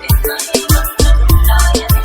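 DJ remix dance music for a sound-system sound check: a steady beat of heavy, very deep bass hits that drop quickly in pitch, with sharp percussion on top.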